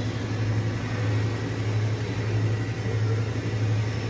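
Steady machine-shop machinery noise: a constant low hum with an even rushing noise over it, unchanging throughout.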